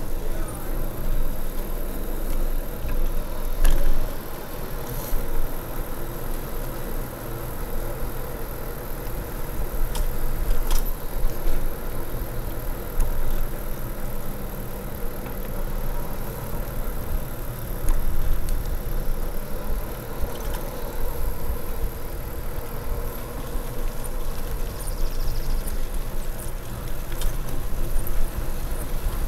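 Riding a bicycle: wind buffets the microphone over the tyres rolling on pavement, making a steady low rumble. A few sharp clicks and rattles come from the bike, about four, five, ten and eleven seconds in.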